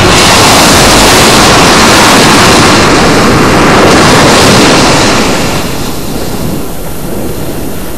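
A loud, steady rush of water that fades down about five seconds in.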